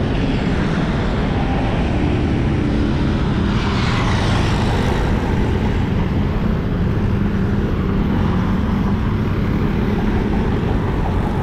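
Steady road traffic noise heard from a moving bicycle, with wind rumbling on the microphone; the noise swells briefly about four seconds in.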